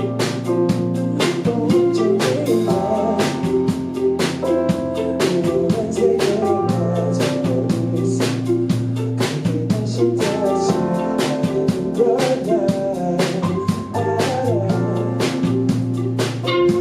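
A live band playing a song: a drum kit keeps a steady beat under sustained instrument notes, with a singing voice.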